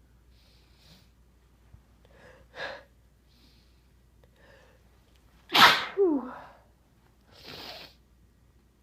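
A person sneezes once, loudly, a little past halfway, after a few short catching breaths. The sneeze ends in a falling voiced cry, and a short breath follows.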